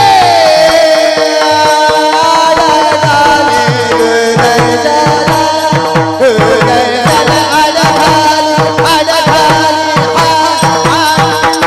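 Devotional kirtan music in raga Bhairavi: a sung line over a steady drone, with a fast run of hand-drum strokes whose bass notes bend downward.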